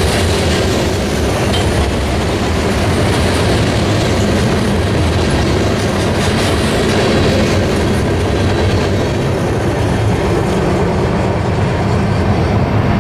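Covered hopper cars of a Norfolk Southern freight train rolling past at speed: a steady, loud rumble of steel wheels on rail, the high end thinning near the end as the last cars go by.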